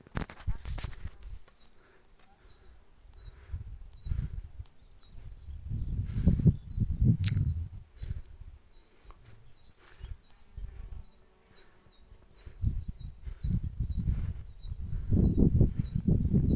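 Outdoor nature ambience: short, high chirps of small birds or insects repeating every second or so, with irregular bursts of low rumble that swell about six seconds in and again near the end.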